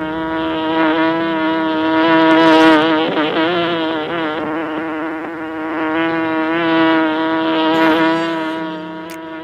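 An insect's steady buzz: one pitched drone with many overtones, wavering slightly in pitch and fading near the end.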